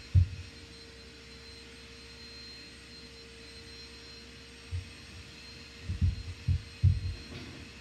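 A steady machine hum with a faint high whine, and a few dull low thumps: one just after the start, one near the five-second mark and a cluster of them about six to seven seconds in.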